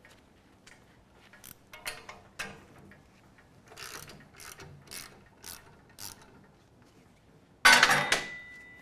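Hand-operated sheet metal brake being worked on 20-gauge sheet steel: a string of light metallic clicks and rattles, then a loud metal clang near the end that leaves a ringing tone for about a second.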